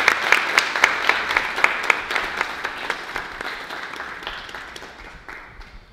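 A small audience applauding, with many individual claps standing out. The applause fades steadily and dies away near the end.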